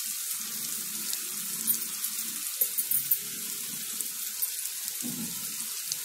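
Onion and dried-prawn masala frying in oil in a pan, sizzling steadily with scattered small crackles and pops.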